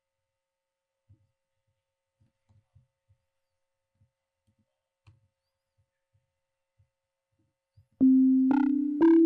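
Near silence with a few faint soft ticks, then about eight seconds in a Sonic Pi synthesizer starts playing loud notes, a new one about every half second, stepping between two pitches.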